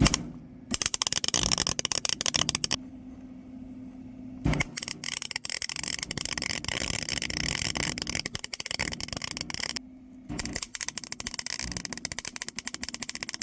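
An arc welder's steady crackle as it welds the differential gears of a riding-mower transaxle solid. It comes in three runs of several seconds each, with short pauses between them where only a low steady hum remains.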